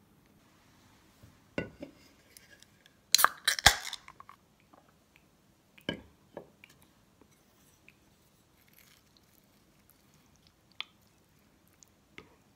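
A beer can's ring-pull snapped open with a crack and a short fizz about three seconds in, after a couple of small knocks. A knock follows, like the can set down on the wooden table, then a few light clicks of a wooden spoon in a ceramic bowl near the end.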